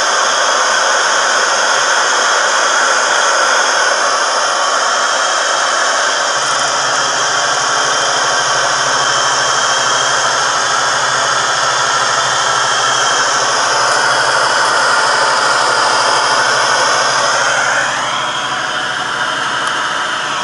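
Camping gas stove burner running with a loud, steady rushing hiss while it heats an alpha Stirling engine. A low steady hum comes in about six seconds in, and a whine rises in pitch near the end.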